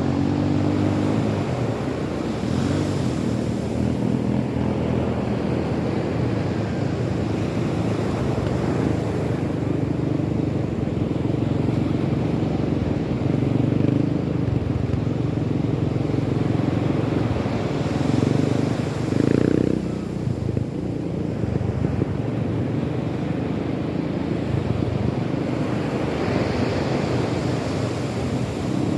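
An engine running with a steady hum over a background of rushing outdoor noise; the engine note swells briefly about two-thirds of the way through.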